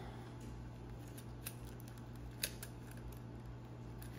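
Small clicks and scrapes of a dash cam being slid into the pinched-open clamp of its mirror-mount bracket, with a sharper click about two and a half seconds in.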